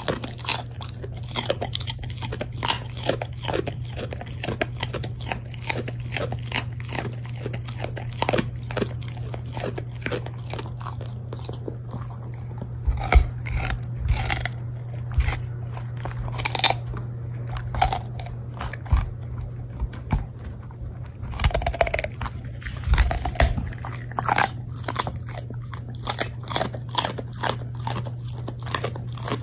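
A Shiba Inu crunching and chewing a raw carrot: a continual run of sharp crunches, with a few heavier bites around the middle, over a steady low hum.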